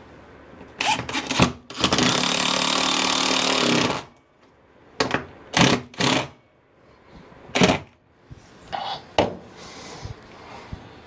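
Cordless drill fitted with a nut-driver socket driving screws through a wall-mounted fan bracket: a few short bursts about a second in, a steady two-second run that stops about four seconds in, then several shorter bursts over the next five seconds.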